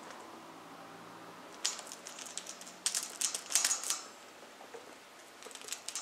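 Blue-fronted Amazon parrot's beak clicking and rattling against the metal chain and bars of its cage, in several quick clusters of clatter from about a second and a half in until about four seconds in.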